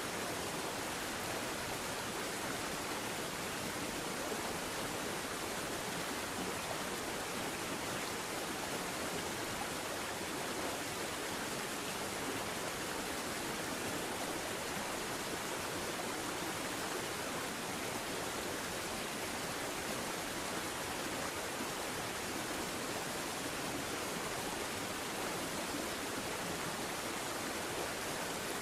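Steady, even rushing hiss.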